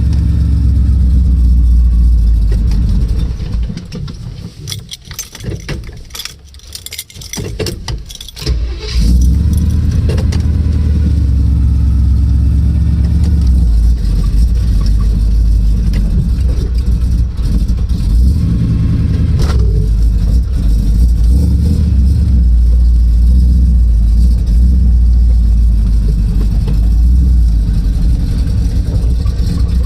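A 1984 Chevrolet K5 Blazer's 454 big-block V8 running while the truck is driven, a loud, steady low engine sound. Between about three and nine seconds in it drops much quieter, with scattered clicks, then comes back up to full loudness.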